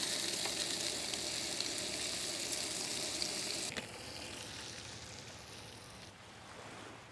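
Bacon sizzling and spitting on a griddle over a Coleman two-burner propane camp stove: a dense hiss with scattered sharp pops. A little under four seconds in, it drops suddenly to a much quieter hiss that keeps fading.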